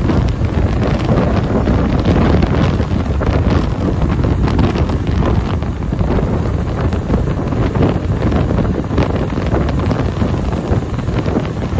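Steady heavy wind buffeting the microphone of a rider on a moving motorcycle at road speed, with the bike's road and engine noise mixed in beneath it.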